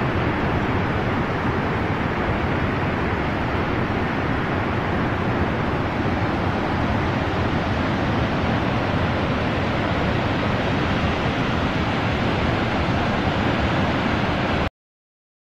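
Steady rushing of Helmcken Falls, a tall waterfall; the sound cuts off suddenly near the end.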